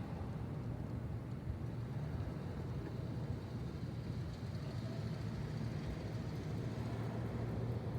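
Steady low rumble of distant road traffic, with no siren tone sounding.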